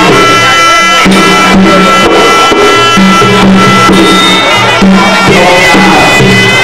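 Traditional Kun Khmer ring music: a sralai reed oboe plays a melody, holding one long note for the first few seconds before moving through other notes, over a regular beat of skor yaul drums.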